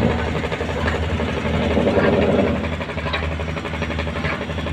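Wooden fishing boat's inboard diesel engine running steadily, a low hum with a rapid, even pulse, as the boat gets under way.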